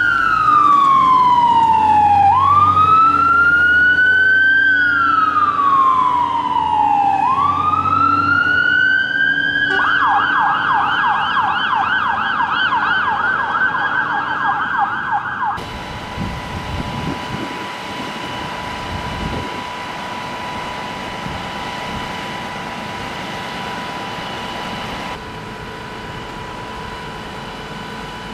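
Fire engine electronic siren on wail, sweeping slowly up and down about every five seconds, then switching to a fast yelp about ten seconds in. About fifteen seconds in, the audio cuts suddenly to a steady vehicle hum with a constant tone, which drops in level near the end.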